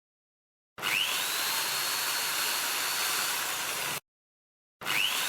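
Electric drill switched on and run free with no load, a check that it works: the motor whines up to speed and runs steadily for about three seconds, stops, then starts again and spins up once more near the end.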